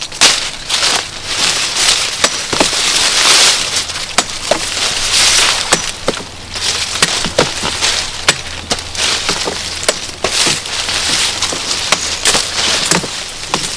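Dry sugarcane stalks and leaves rustling and crackling as cane is handled and topped by hand, with many sharp snaps and chops of a cane knife cutting through the stalks.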